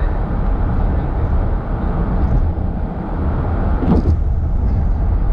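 Steady low road and engine rumble heard from inside a moving car's cabin, with a short falling sound about four seconds in.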